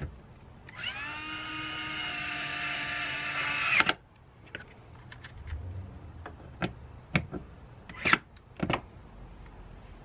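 Cordless drill/driver driving a door-panel screw: a motor whine that rises in pitch as it spins up, runs about three seconds and stops suddenly. Several light clicks and taps follow.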